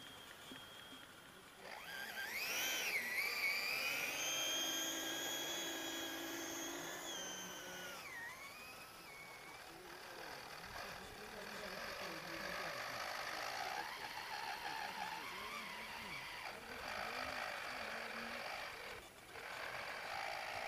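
Radio-controlled scale model truck's electric drive whining under load: the pitch rises about two seconds in, holds, and falls away about eight seconds in. After that the drive runs more quietly and unevenly, in shorter spurts.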